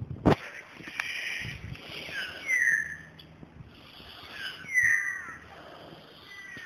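A bird calling again and again outdoors. Each call is harsh and ends on a falling note, coming about every two seconds. A single sharp knock sounds just after the start.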